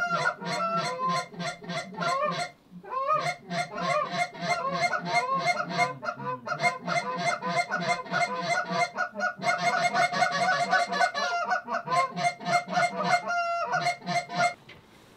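Hand-blown goose calls worked fast by hunters, a rapid run of clucks and honks at about five or six a second, calling to geese overhead to bring them in. The calling pauses briefly twice and stops abruptly near the end.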